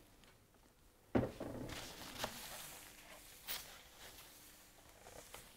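Quiet handling noises at a workbench: a knock about a second in with some rustling after it, then a couple of light taps.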